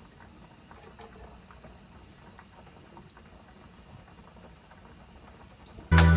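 Faint, steady crackle of melted butter bubbling in a frying pan, with a pot of potatoes boiling on the gas stove beside it. Loud music with a beat cuts in suddenly near the end.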